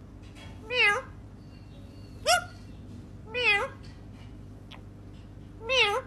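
Indian ringneck parakeet mimicking a cat's meow: four separate short meows, each with a wavering pitch.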